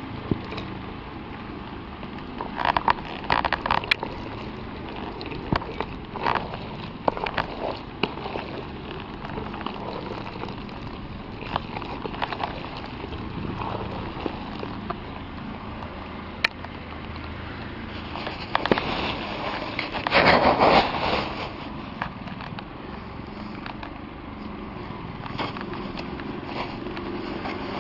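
Irregular crackling, rustling and knocking as dry and damp feed meal is worked by hand in a plastic basin, with a louder rustling stretch about twenty seconds in.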